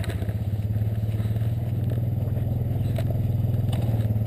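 Small vehicle engine that has just caught, idling steadily with an even low pulse.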